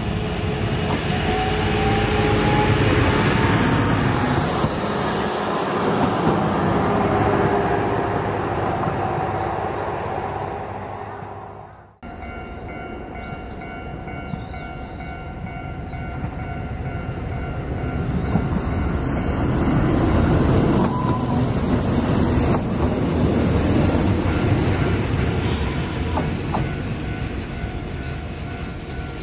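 JR Hokkaido H100 series (DECMO) diesel-electric railcar passing close by, its engine running under a rising whine from the electric drive. The sound cuts off abruptly about twelve seconds in, and another H100 railcar then builds up, loudest a little past the middle, with a steady high whine over rumble.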